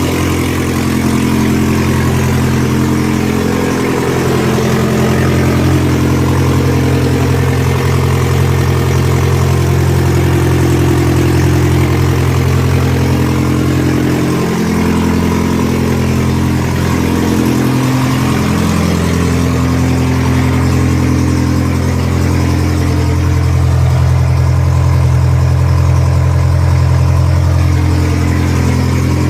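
1990 Volkswagen Corrado's four-cylinder engine idling steadily, running again after a new fuel pump and sending unit were fitted.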